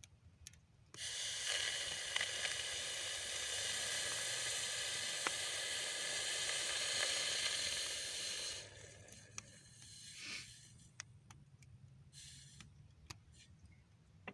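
Red-hot metal sizzling and hissing as it is quenched in water, steady for about seven and a half seconds, then cutting off suddenly. A few faint clicks follow.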